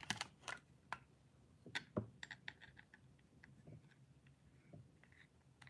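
Faint, scattered small clicks and taps from handling a plastic two-way light switch: a wire pushed into its terminal and a screwdriver set on the terminal screw to tighten it.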